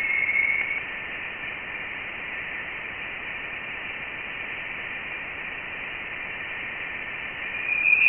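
NASA's sonification of Voyager 1's plasma wave instrument data: a steady hiss with a brief tone in the first second and a louder, slightly higher tone swelling in near the end. The tone's pitch tracks plasma density, so the higher tone near the end marks the denser plasma of interstellar space beyond the heliopause.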